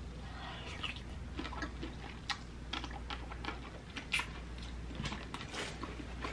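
Close-up eating sounds: wet lip smacks and chewing clicks as boiled shrimp is eaten and sauce is sucked off the fingers, in many quick, irregular clicks.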